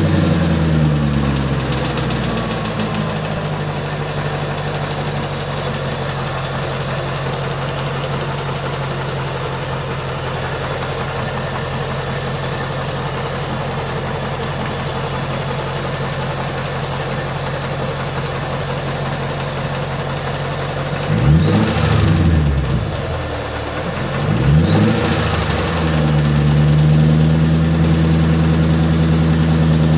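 A Ford engine idling just after starting, its note falling and settling over the first couple of seconds, then running steadily. About two-thirds of the way through it is blipped twice, a few seconds apart, before settling back to idle. The owner calls it a bad engine.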